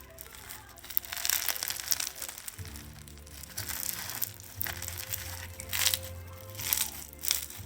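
Crunchy slime being squeezed and worked by hand, crackling in irregular bursts from about a second in.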